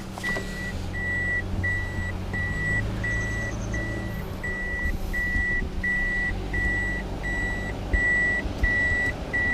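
Car warning beeper sounding a steady run of short high beeps, about two a second, over the low hum of a running engine.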